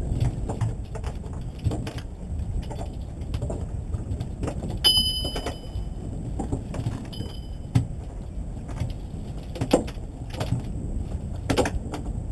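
Fishing-boat deck ambience: a steady low rumble with scattered knocks and clicks. Two high-pitched tones sound over it, a longer one about five seconds in and a shorter one about seven seconds in.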